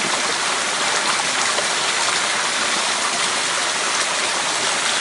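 Steady rush of water flowing in a small stream.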